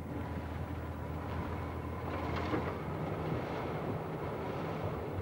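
Dodge van's engine running with a steady low drone and some faint rattles.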